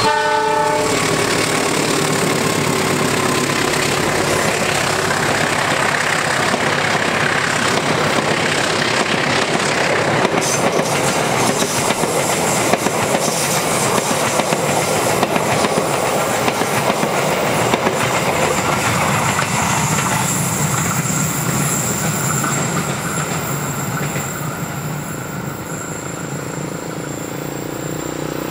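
Diesel locomotive sounding its horn briefly as it comes in, then a passenger train passing close by, its wheels clattering over the rails. The sound weakens in the last few seconds as the last coaches go by.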